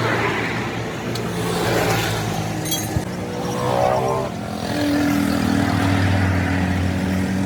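Motor vehicle engines running and passing by, their hum shifting in pitch, with a single sharp knock about three seconds in.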